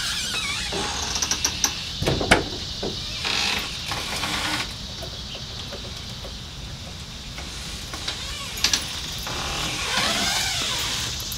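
Front storm door being opened and used: sharp latch clicks, the loudest about two seconds in, and squeaking hinge glides near the start and again near the end as someone comes out onto the porch.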